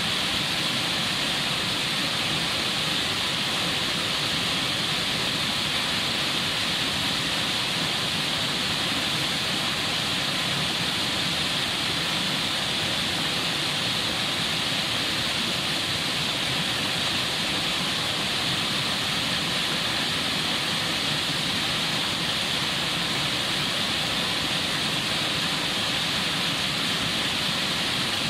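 Mountain stream rushing over boulders in white-water rapids: a steady, unbroken rush of water with a strong hiss.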